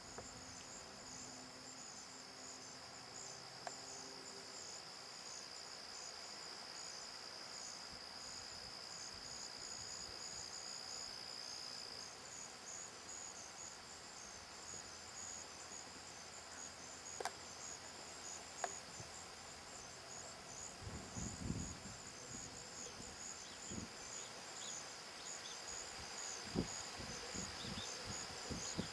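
Steady chirring of insects in the pasture grass: a constant high tone with a fast pulsing trill above it. Two sharp clicks come a little past halfway, and low irregular thuds in the last third.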